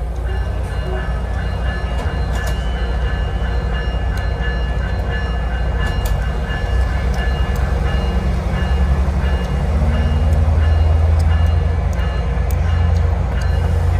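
Diesel commuter railcar running, heard from on board: a steady low engine rumble mixed with rail noise, with a faint steady whine above it. The rumble grows louder from about halfway through, as when the train pulls away from a stop.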